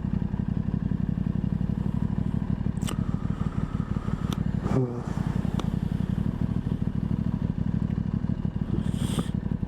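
Aprilia Tuono 660's parallel-twin engine running steadily under way. There is a brief dip and drop in pitch about halfway through, and a few light clicks.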